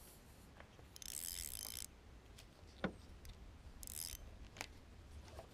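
Fishing tackle being worked: a spinning reel and its line making two short hissing bursts, one about a second in and one about four seconds in, with a few light clicks from the reel.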